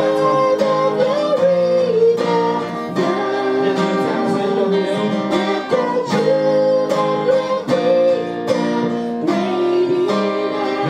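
Acoustic guitar strummed in a steady rhythm, accompanying a worship song sung through microphones in long held notes.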